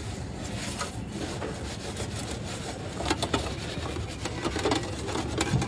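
Metal pizza peel scraping and knocking against the brick floor of a wood-fired oven: a few short scrapes about halfway through and again near the end, over a steady low background noise.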